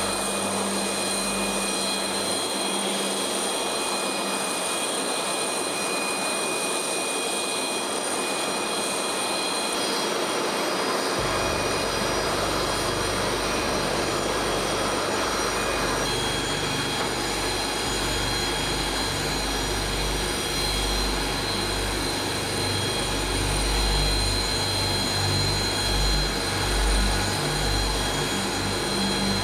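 Jet aircraft turbines running on a flight line: a steady rushing noise with a high whine held on several steady pitches. A deep rumble joins about eleven seconds in, and the sound shifts again a few seconds later.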